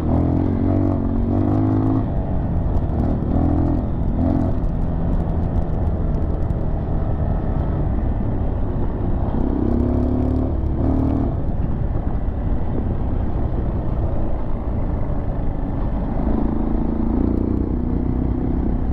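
Dirt bike engine running while riding a sandy trail, its note rising several times as the throttle opens, over a heavy low rumble of wind on the microphone.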